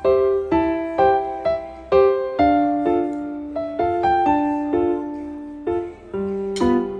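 Background piano music: a slow melody of single notes struck about twice a second, each ringing and fading.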